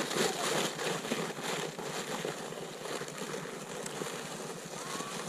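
A sled sliding down snow: a rough scraping hiss that fades as it moves away.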